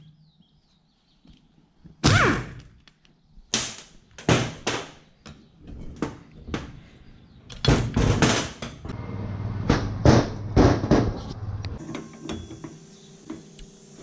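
A string of separate metal clunks and knocks as tools and fan-pump parts are handled on a steel workbench, starting about two seconds in, single and in short clusters.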